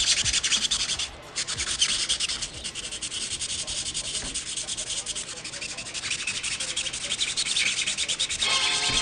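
Hand sanding of Bondo body filler with sandpaper: quick, scratchy back-and-forth strokes with a short pause about a second in. Background music comes in just before the end.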